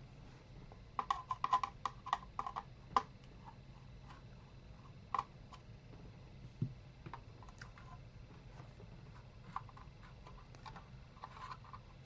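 Clicking of a computer keyboard and mouse: a quick run of taps about a second in, then scattered single clicks, over a faint low steady hum.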